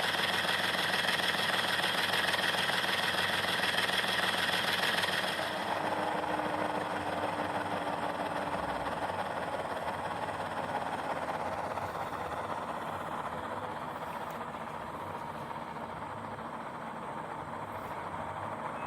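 HO scale Intermountain ES44AC's ZIMO sound decoder playing a GE GEVO diesel engine sound through newly installed ZIMO speakers, now wired in parallel; it sounds clean, with only minor crackling every now and then. About five seconds in, the higher part of the sound drops away and the engine runs on more quietly.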